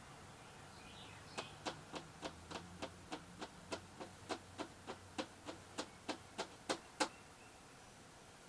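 A steady run of about twenty sharp knocks or taps, roughly three to four a second, starting about a second and a half in and stopping about seven seconds in, the last few the loudest.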